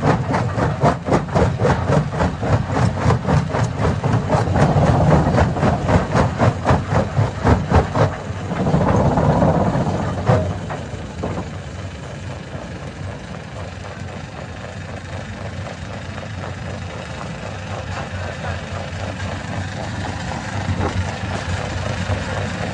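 Stone crusher machinery at work. For the first eight seconds there is a fast run of rhythmic knocks, then a burst of grinding noise, then a steadier, quieter running drone.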